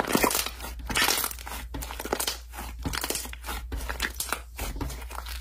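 Thick yellow slime squeezed and pressed between two hands, giving a dense, irregular run of crackles and sticky pops.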